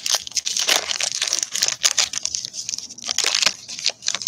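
Foil wrapper of a basketball trading-card pack crinkling and crackling as it is handled and torn open.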